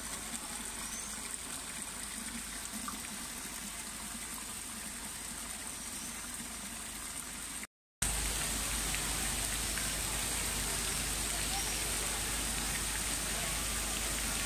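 Water from a small drinking spout pouring and splashing into a stone basin, a steady trickle. About eight seconds in it switches to the louder, steady rush of the Trevi Fountain's water, with the murmur of a crowd.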